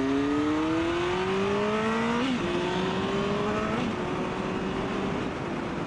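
Sportbike engine accelerating through the gears: its pitch climbs, drops at an upshift about two seconds in, climbs again and drops at a second upshift near four seconds, then holds steady at cruising speed, over wind rush.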